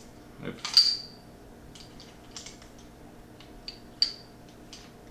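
Steel 1911 pistol parts clicking and clinking as the slide and frame are handled and fitted together during reassembly. A few sharp metallic clicks with a short ring, loudest about a second in and again about four seconds in.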